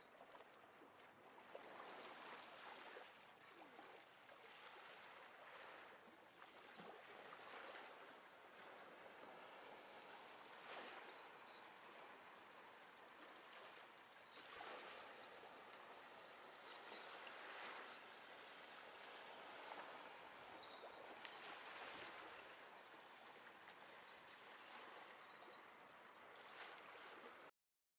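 Faint wash of small sea waves, a soft hiss that swells and falls every few seconds, then cuts off abruptly near the end.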